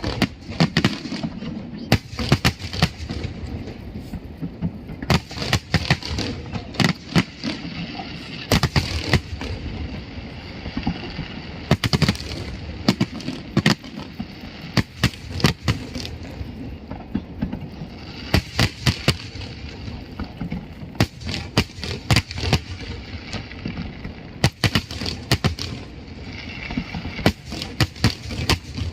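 Aerial fireworks going off in rapid, irregular succession: many sharp bangs and cracks, several a second at times, over a steady background of noise.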